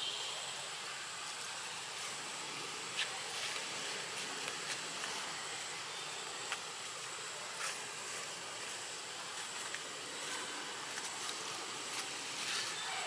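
Steady outdoor forest ambience: an even hiss with a thin, steady high-pitched insect drone, and a few faint scattered clicks.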